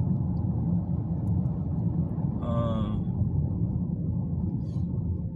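Steady low road and engine rumble inside a moving car's cabin, with one short vocal sound from a man about halfway through.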